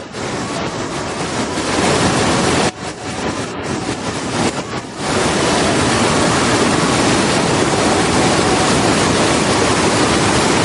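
Waterfall: a loud, steady rush of falling water. It drops away for a moment twice, about three and five seconds in.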